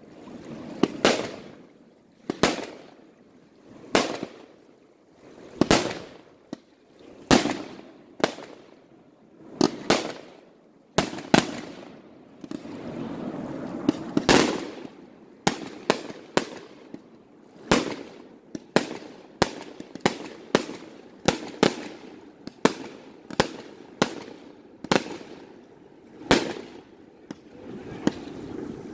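Aerial fireworks firing in quick succession: a sharp bang about every second and a half, each trailing off. Near the middle comes a stretch of steady rushing noise, then the shots come about twice as fast.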